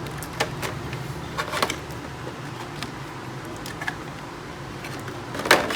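Scattered light clicks and taps as a laptop battery pack is lifted out of a MacBook Air's case, with a short scraping rustle near the end.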